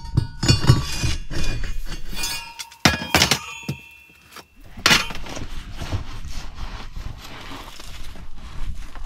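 Debris being swept and scraped out of a brick stove's firebox: rapid scraping with sharp clinks and knocks, a louder knock about three seconds in, then a steady rough scraping of dust and grit.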